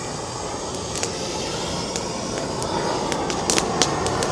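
Burning wood chips and mulch crackling and popping over a steady rushing noise, with a few sharper pops about three and a half seconds in.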